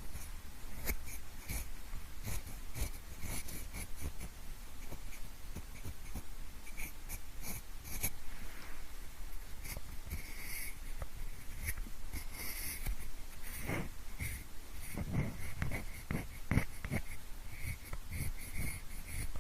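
Pencil sounds mixed to imitate ear cleaning: a steady run of small scratches and clicks, with a cluster of heavier, deeper strokes about three-quarters of the way through.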